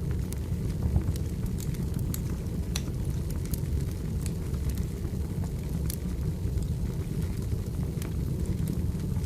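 Firewood burning with a steady low noise and irregular sharp crackles and pops.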